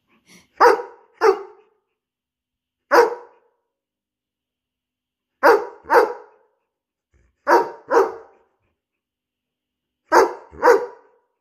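Young borzoi (Russian wolfhound) giving playful barks: about nine short, loud barks, mostly in quick pairs, with pauses of a second or two between.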